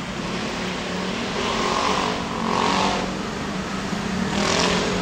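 Street traffic: a steady engine hum, with vehicles passing and swelling up and fading three times.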